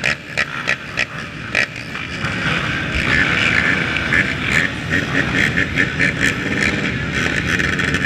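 Many ATV engines running across a crowded race starting field, a continuous mixed engine noise with short irregular knocks, thickest in the first couple of seconds.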